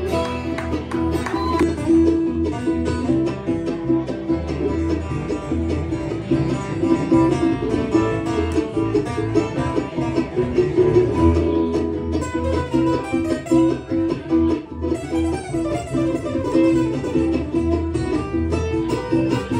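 Live country band playing an instrumental break with no singing: plucked string instruments, guitar and banjo, over a steady bass line.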